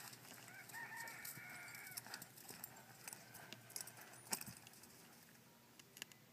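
A faint animal call held for about a second and a half, starting about half a second in, followed by scattered faint clicks.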